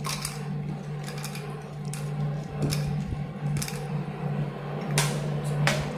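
Scattered light clicks and knocks of a plate and small steel bowls being handled on a kitchen counter, about eight in all, the sharpest near the end, over a steady low hum.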